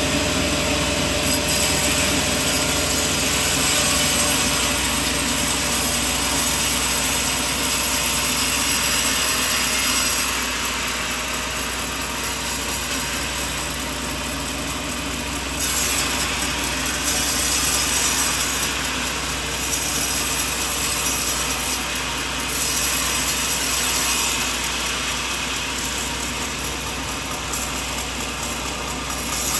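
Sawmill running and sawing coconut wood, a steady machine hum under the noise of the blade cutting. The cutting grows louder in several long stretches, with quieter running between them.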